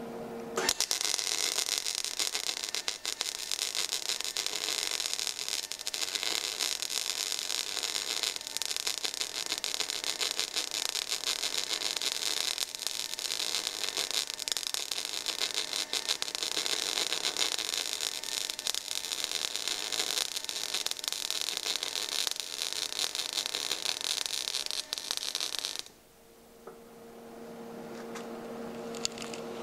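MIG welding arc crackling and spitting steadily as 0.023 in ER70S-6 solid wire is run without shielding gas, the arc unshielded and throwing sparks. It starts about half a second in, runs for about 25 seconds, and cuts off suddenly near the end, leaving a low steady hum.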